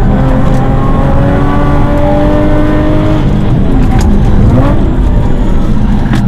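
Subaru EZ30 3.0-litre flat-six with aftermarket headers and exhaust, heard inside the cabin, pulling hard with its pitch climbing steadily, then coming off the throttle about three seconds in; the note dips and rises again as the car brakes hard and shifts down for a corner.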